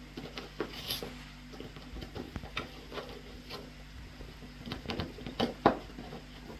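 A dog searching for a treat: irregular light taps, knocks and rustles, the loudest a little over five seconds in, over a steady low hum.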